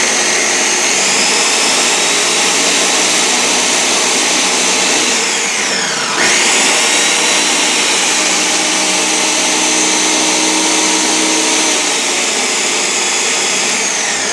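A 1,000-watt six-blade countertop blender running at high speed, chopping chunks of cucumber, celery and greens with very little water. About five seconds in its pitch slides down briefly, then jumps back up.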